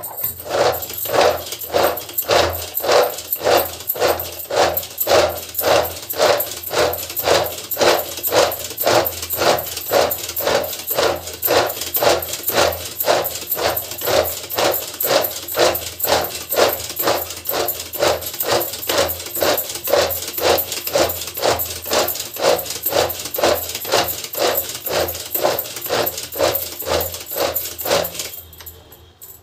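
Hand-operated vegetable chopper chopping carrots, worked over and over at about two strokes a second, each stroke a whirring rasp of the blades through the carrot; it stops about a second before the end.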